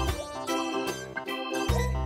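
Background music: a keyboard tune with quick changing notes over a deep bass line.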